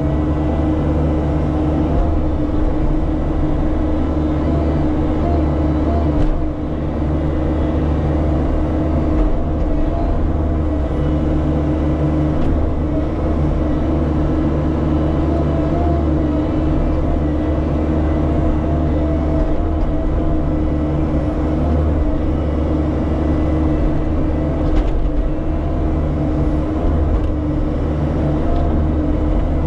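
Bobcat E50 mini excavator's diesel engine running steadily under load as the boom and bucket dig a trench in dirt, heard from the operator's seat. The engine dips briefly about six seconds in.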